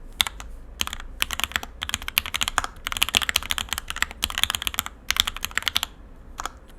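Typing on a Bear65 mechanical keyboard with JTK John Wick keycaps and OP black 80 g switches: quick runs of keystrokes broken by short pauses, ending with a single stroke near the end.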